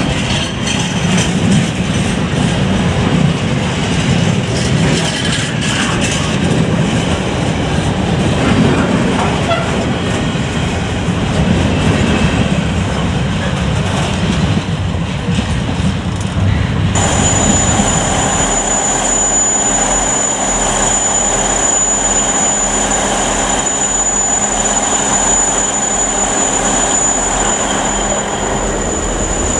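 A freight train of empty flat wagons rolls past with a heavy rumble of wheels on the track. About 17 seconds in, this gives way to an electric multiple unit at a station platform, with a steady high-pitched tone over a low hum.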